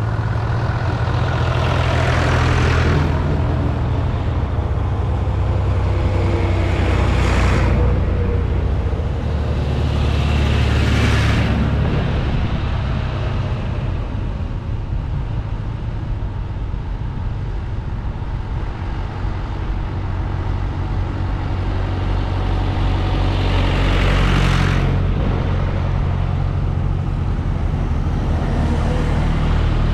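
Tractor diesel engines running as a procession of tractors drives past one by one. Five pass close, each growing loud and falling away, with a steady low engine hum from the queue between them.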